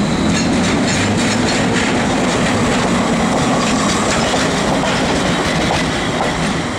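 PKP Intercity EP08 electric locomotive running light past at close range: a steady rumble with repeated wheel clicks over the rail joints.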